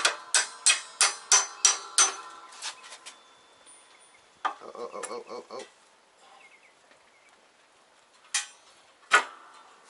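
Hammer striking a VW MK4 control arm clamped in a steel bench vise, working its rubber bushing back into the arm: a quick run of ringing metallic taps, about three a second, for the first two seconds, then two single sharper blows near the end.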